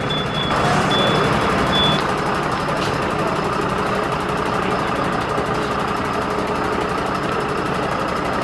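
Turntable ladder fire engine manoeuvring: its reversing alarm beeps for the first two seconds or so and then stops, while the truck's engine runs steadily throughout.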